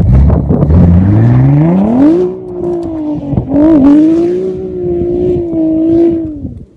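Audi B5 S4's twin-turbo V6 revving hard: the pitch climbs steadily for about two seconds, then holds at high revs with a brief dip midway as the car drifts through snow, and cuts off sharply near the end.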